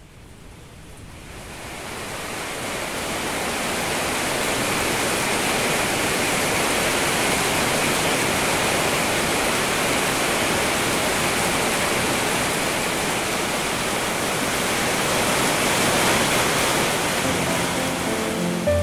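Steady heavy rain, an even hiss that fades up over the first few seconds and then holds. Soft music comes in near the end.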